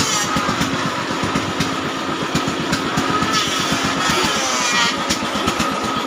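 A small engine running steadily, with rapid, even firing pulses throughout.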